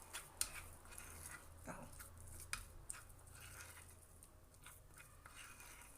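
A metal spoon stirring a sticky mixture of sesame seeds and honey in a bowl: a scatter of light clicks and scrapes against the bowl.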